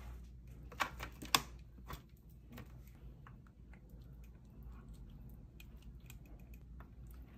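Light clicks and taps of plastic dinner plates and food being handled on a table, loudest in two sharp clicks about a second in, then scattered faint ticks.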